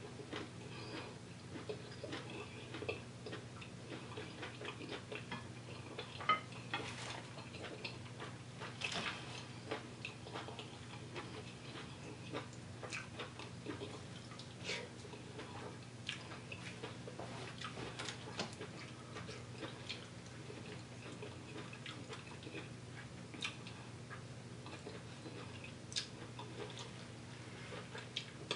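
Close-miked eating by hand: chewing, lip smacks and wet mouth clicks, many small irregular clicks with a few louder smacks, over a faint steady low hum.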